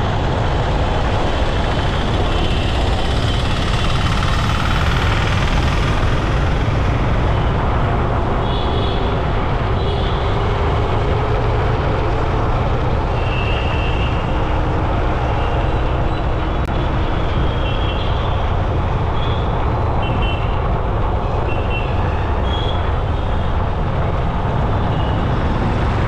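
Road traffic noise heard from a moving rider on the road: a steady, loud rumble of vehicles and rushing air, with several short high beeps scattered through the second half.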